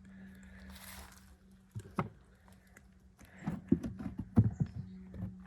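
Beehive frames and comb debris being handled: a brief rustle, a sharp knock about two seconds in, then a run of knocks and clatter in the second half, over a steady low hum.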